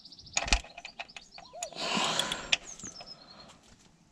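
Metal clicks and knocks of a ratchet and 18 mm socket being worked on a car's oil-pan drain plug, a socket one size too big for the 17 mm plug, which won't undo. Birds chirp in the background.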